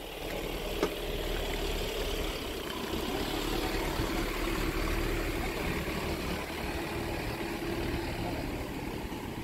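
A Volkswagen van's engine idling steadily, swelling a little around the middle.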